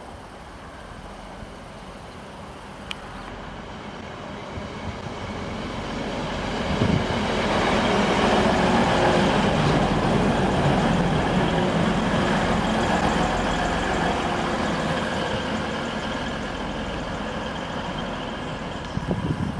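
TransPennine Express Class 185 Desiro diesel multiple unit passing close by, its diesel engines and wheels on the rails swelling to a peak about eight seconds in and then slowly fading.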